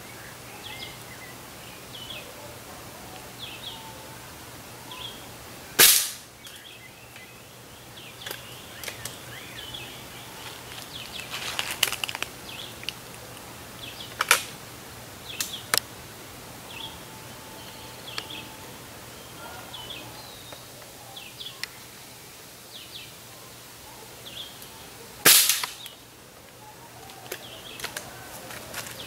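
Two shots from a Cometa Fusion 4.5 mm air rifle, about 19 seconds apart, each a sharp crack. Between them, around the middle, a run of clicks and clacks as the rifle is cocked and a pellet loaded. Birds chirp in the background.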